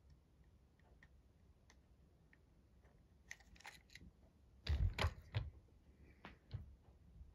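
Light handling noise: a few faint clicks, then a cluster of sharp clicks and dull thumps about three to five and a half seconds in, loudest around five seconds, with two more taps about six and a half seconds in.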